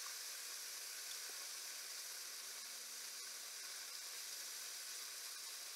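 Moose sausages sizzling faintly in a frying pan, a steady hiss.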